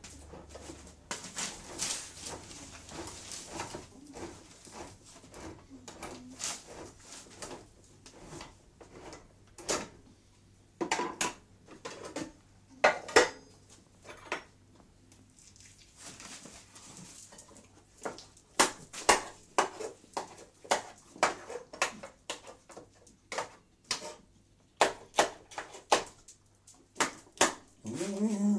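Two beagles being fed: food bowls clatter and knock in irregular bursts as the dogs eat, with soft sniffing between the knocks.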